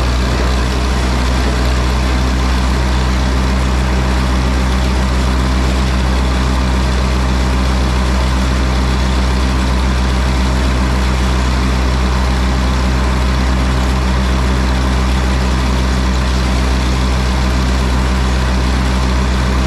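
Gehl long-box forage blower running at speed, driven by a Case 830 tractor, while chopped sorghum-sudangrass is fed into its hopper from a self-unloading forage wagon. Steady, loud mechanical noise with a constant low engine hum underneath.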